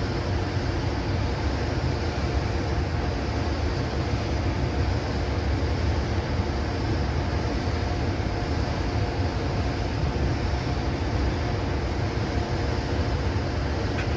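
JR Freight EH200 'Blue Thunder' electric locomotive standing with its cooling blowers running: a steady, even whir over a low rumble, with a faint held tone.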